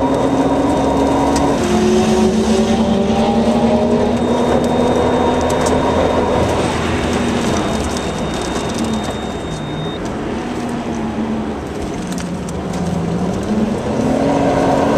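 Nissan Skyline R33 GT-R's twin-turbo straight-six heard from inside the cabin, running under load around a race circuit. Its pitch drops suddenly about a second and a half in, eases and dips twice as it lifts for corners, then climbs again as it accelerates near the end.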